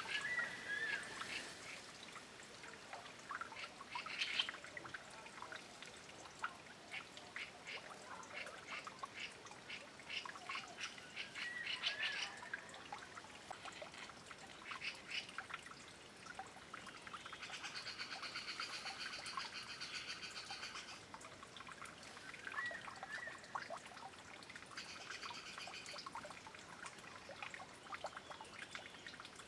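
Taiwan scimitar babblers bathing in a shallow stream: many quick small splashes and flicks of water, over the trickle of the stream. Short whistled bird notes come at the start and twice later, with a longer, harsher layered call a little past the middle and again near the end.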